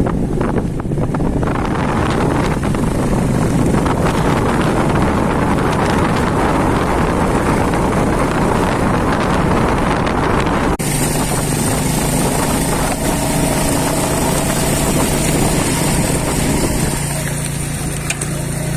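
Motorcycle engine running steadily under heavy wind noise on the microphone while riding. About two-thirds of the way through, the sound cuts sharply to a steadier engine hum with much less wind.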